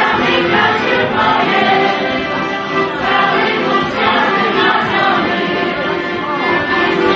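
Live accordion dance music, with a group of voices singing along.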